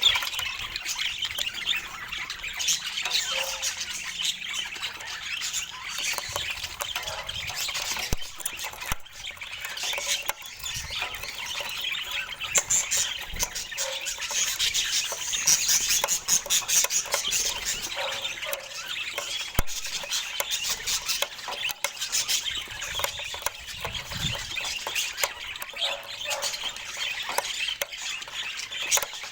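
Budgerigars chirping and chattering continuously, many short high calls crowding over one another.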